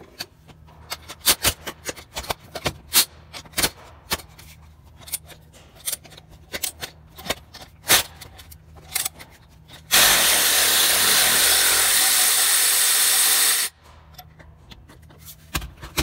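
Wrench work on an engine-bracket bolt: irregular metallic clicks and clinks. About ten seconds in, a power tool runs steadily for about three and a half seconds and stops abruptly, followed by more clicks.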